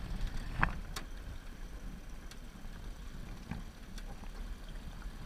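Small aluminium boat with an outboard motor moving slowly: a steady low rumble, with a few sharp knocks on the aluminium hull, the loudest about half a second and a second in.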